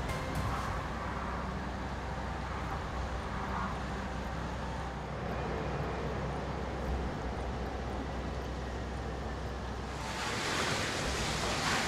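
Low, steady engine drone of an inland tanker barge moving slowly into a lock chamber, under a haze of wind and water noise. About ten seconds in, the drone gives way to a louder rushing noise.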